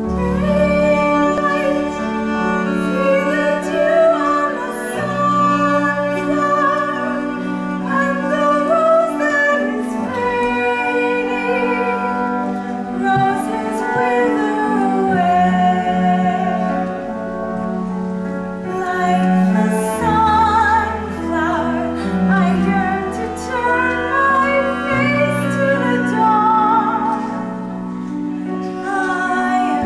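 A woman singing a slow stage-musical solo over instrumental accompaniment of held low chords that change every few seconds.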